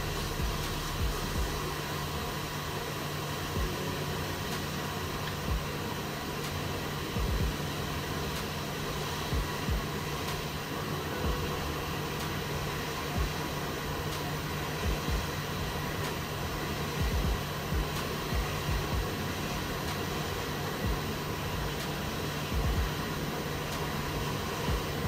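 Hot air rework station blowing steadily on a laptop logic board, heating the solder to lift off a chip, with a constant low hum and occasional soft bumps of handling.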